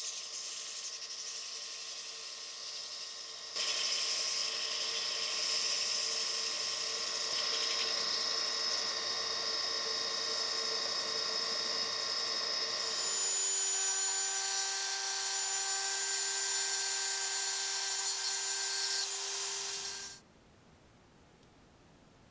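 Drill press running, spinning a wooden wrench handle while sandpaper is pressed against it: a steady motor whine with a sanding hiss over it. It gets louder a few seconds in, its pitch shifts about halfway through, and it cuts off near the end.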